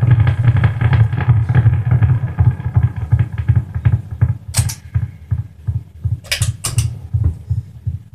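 Electric guitar played through effects pedals and an amplifier: a fast, chugging low pulse that gradually fades, broken by three short, bright scratchy strums in the second half.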